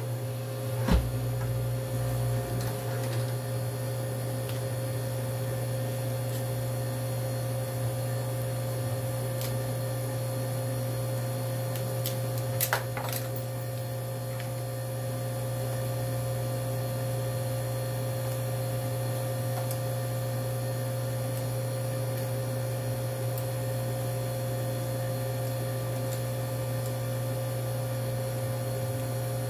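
Steady machine hum from a screen-separating freezer running, a low drone with a steady higher tone over it. A sharp knock about a second in and a brief clatter near the middle.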